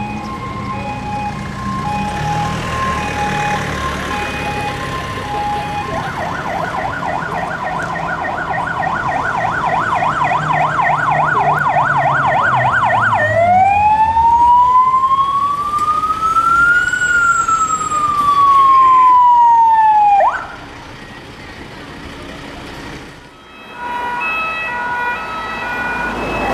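Electronic siren of an emergency vehicle driving past with its engine audible. It sounds a two-tone hi-lo pattern, switches about six seconds in to a fast yelp, then to a slow wail that rises and falls, and cuts off suddenly. After a quieter moment, a two-tone siren starts again near the end.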